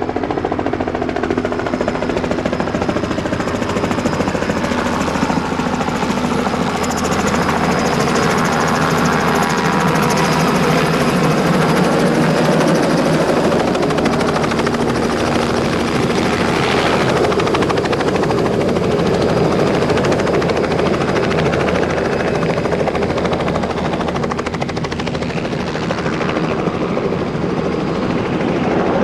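Robinson light helicopter hovering and hover-taxiing low, with a steady rotor and engine sound. Its tones slowly slide in pitch over the first several seconds as it moves.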